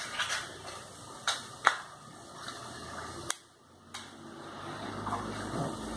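Matches being struck on a matchbox to light a gas stove burner that did not light: a few short, sharp scratches in the first half. A low steady hum builds over the last two seconds.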